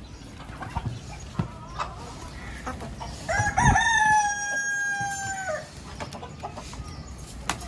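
A rooster crowing once, a single long crow held for about two seconds, starting about three seconds in.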